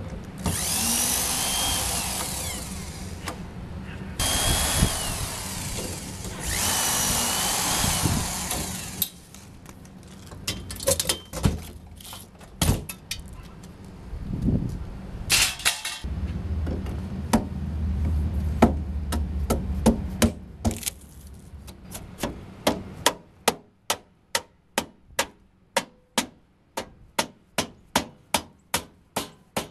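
Corded electric drill run in three bursts of a few seconds each, backing screws out of a refrigerator's sheet-metal cabinet, with a high whine over the motor noise. Scattered clicks and knocks of parts being handled follow. From about two-thirds of the way in comes a steady run of mallet blows on the refrigerator's metal panel, about two a second.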